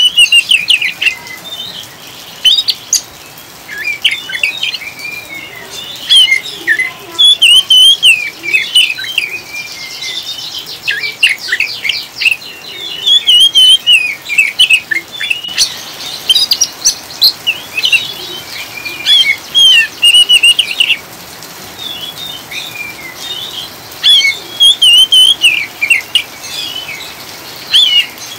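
Oriental magpie-robin (kacer) singing loud, rapid, chattering 'ngriwik' phrases of quick chirps and trills, in bursts of a few seconds with short pauses. A steady hiss of rain runs underneath.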